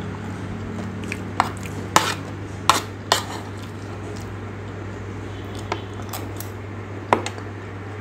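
Metal fork clinking and scraping against a ceramic plate, six or so sharp taps spread out over several seconds, over a steady low hum.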